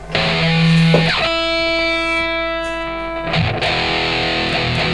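Ibanez RC720 Premium electric guitar with humbucker pickups played on a distorted amp sound: a low note, then a chord left ringing for about two seconds, then a rhythmic riff from about three seconds in.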